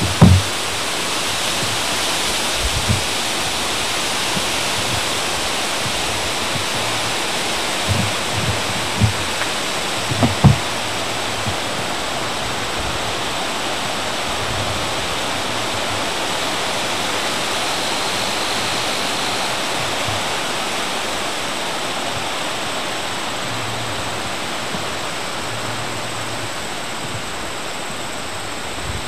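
A steady, even rushing hiss with no pitch or rhythm. A few soft low bumps sound near the start and again around eight to ten seconds in.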